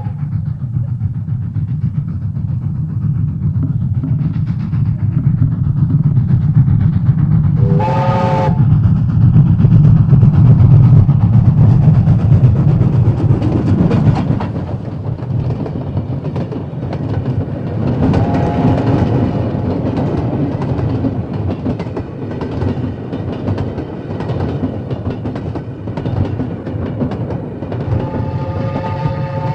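Train passing with a steady low rumble that swells to its loudest around ten seconds in and drops off at about fourteen seconds. Its horn gives a short blast about eight seconds in and starts a longer blast near the end.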